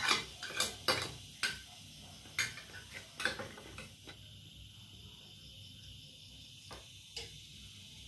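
Metal spoon and fork clinking and scraping on a plate as the last of the food is gathered up, then set down on it: a quick run of sharp clinks over the first four seconds, then a couple of lone clinks near the end.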